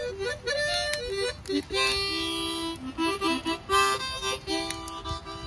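Harmonica being played: a halting melody of single held notes with short gaps, and a few chords of several notes blown together.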